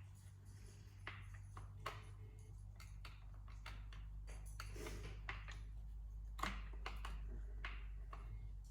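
Light clicks and taps of small metal parts and tools being handled on a workbench during chainsaw work, scattered irregularly over a low steady hum.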